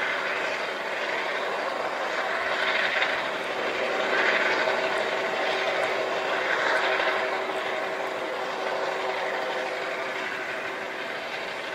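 MH-65 Dolphin helicopter flying low and slow over the water: a steady turbine and rotor whine with a rushing noise that swells and fades a few times.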